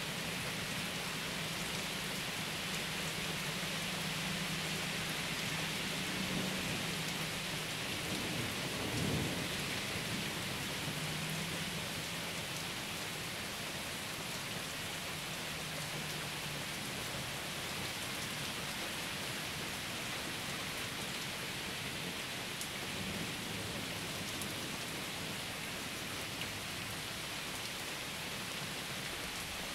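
Thunderstorm: rain falling steadily throughout, with a long low roll of thunder through the first half that swells about nine seconds in, and a weaker rumble of thunder later on.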